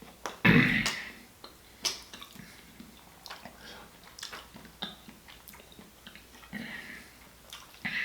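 Close-up wet eating sounds of a person eating seafood: smacking and sucking with scattered clicks, and one loud burst about half a second in.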